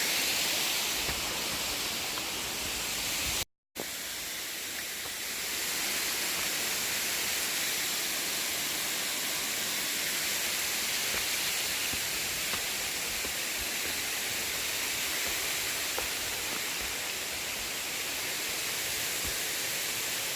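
A waterfall's steady rushing water, with the sound cutting out completely for a moment about three and a half seconds in.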